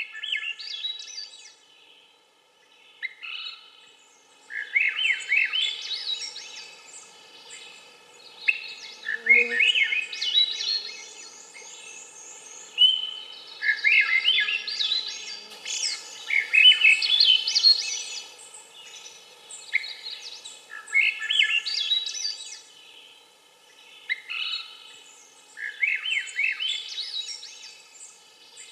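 Swainson's thrush singing its flute-like phrases, each spiralling upward in pitch, repeated every few seconds with short pauses between them.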